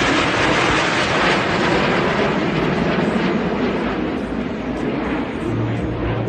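Jet engines of a five-plane aerobatic formation flying overhead: a steady rushing jet noise that eases off slightly over the last couple of seconds.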